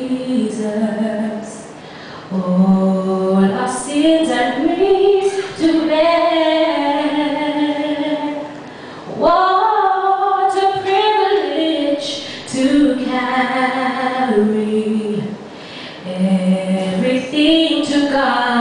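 A woman sings solo a cappella into a microphone, with no accompaniment, in long held, sliding phrases. She breaks for breath about two seconds in, again around eight and a half seconds, and again around fifteen seconds.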